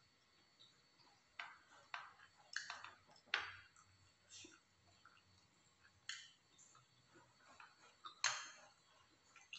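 A handful of faint, scattered clicks and taps of eating utensils against ceramic bowls and a plate during a meal. The loudest come about three and a half seconds in and again near the end.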